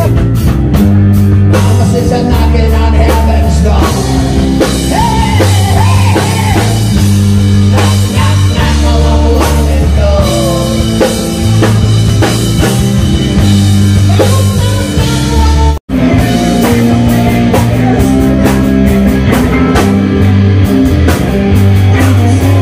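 Rock music with a drum kit, electric guitars and a singing voice, with a steady beat. It cuts out very briefly about sixteen seconds in.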